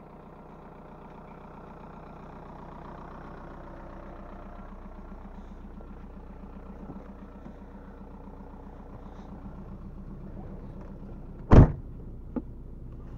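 1999 VW Golf Mk4's 1.9 TDI four-cylinder turbodiesel idling steadily. Near the end a car door shuts with one loud slam, followed shortly by a small click.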